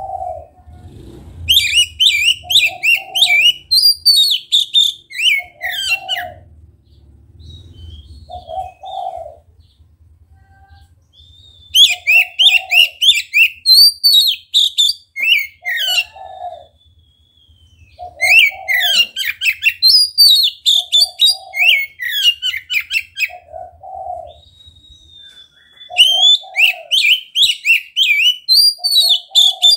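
Oriental magpie-robin (kacer) singing loudly in four bursts of rapid, varied high phrases separated by short pauses. A short low note repeats about once a second underneath.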